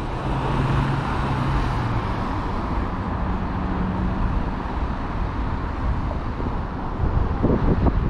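City street ambience with steady traffic noise and a vehicle's low engine hum in the first few seconds. Near the end, wind starts buffeting the microphone.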